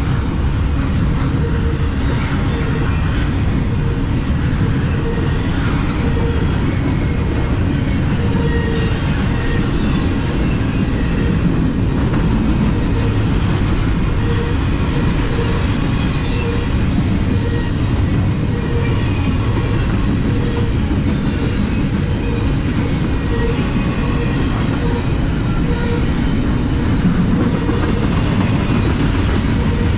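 Double-stack intermodal container train rolling past: a steady rumble of freight car wheels on the rails with a regular rhythmic clatter.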